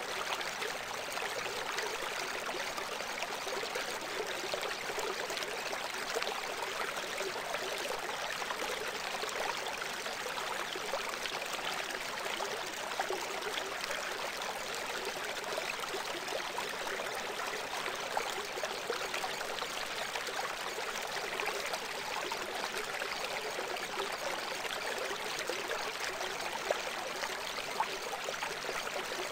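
Steady flowing-water sound like a running stream, even and unbroken, serving as the masking bed of a subliminal audio track.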